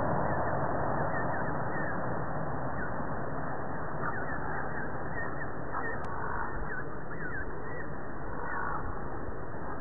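Mallard ducklings calling with short, high chirps, scattered through the second half, over a steady background noise.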